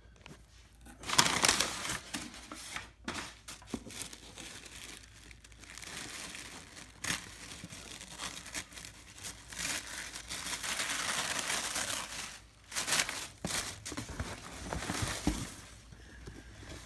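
Crumpled brown kraft packing paper being pulled out of a cardboard shipping box, crinkling and rustling in irregular bursts. The loudest crinkling comes about a second in and again near the end.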